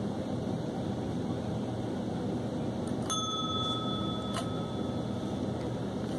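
A chrome service bell pressed once by a cat's paw, giving a bright ding that rings for about a second before a second tap cuts it short. A steady low background hum runs throughout.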